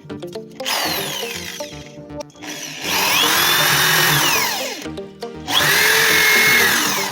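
A power tool running in three bursts, its whine rising as it spins up and falling as it winds down, over background music.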